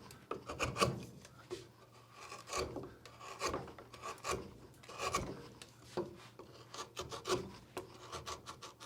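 A hand carving tool cutting into old, hard beaver-chewed wood in short scraping strokes, roughly one a second and unevenly spaced. The wood is tough going.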